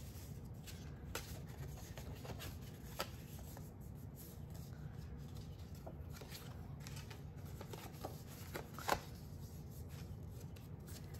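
Cardstock mini file folders being handled and folded backwards by hand: light rustling with scattered clicks and taps of stiff paper, the sharpest one late on.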